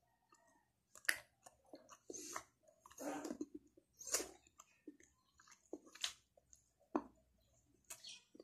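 A person chewing a mouthful of monay bread roll and pancit canton noodles, with irregular clicks and smacks of the mouth.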